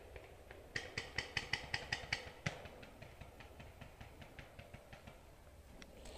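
Footsteps crunching through dry leaf litter. Near the start comes a rapid run of about ten sharp pops, some six a second.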